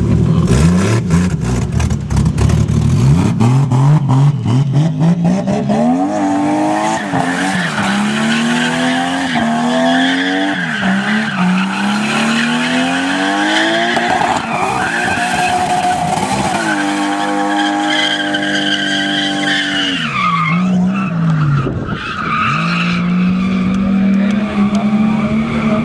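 Nissan Skyline engines revving hard while drifting, the revs climbing and dropping again and again and held high for a few seconds past the middle, with tyres squealing and skidding on the pavement.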